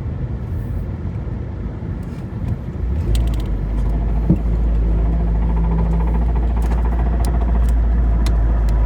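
Vehicle rumble, a low steady drone that grows louder about three seconds in and then holds, with a few sharp clicks over it.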